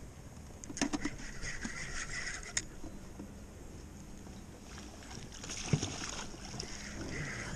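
A landing net splashing into the water and scooping a hooked fish, with a sharp thump and splashing about six seconds in. A few knocks and a rattling hiss come about a second in.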